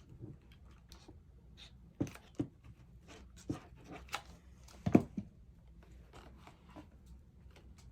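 Handling of cardstock while assembling a paper box: scattered light taps, rustles and clicks, with sharper knocks about two seconds in and a louder cluster about five seconds in.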